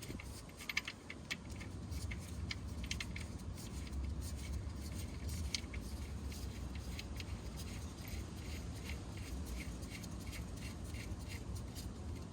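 Ratchet clicking in short, uneven runs over a low hum as the oil drain plug is screwed back into the oil pan and tightened with a 17 mm socket.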